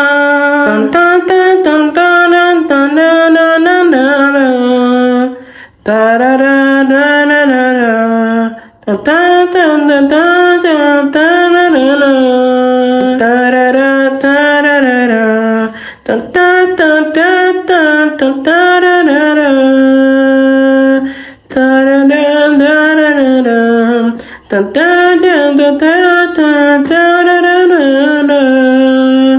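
A single voice singing unaccompanied, in long sliding phrases broken by short pauses for breath.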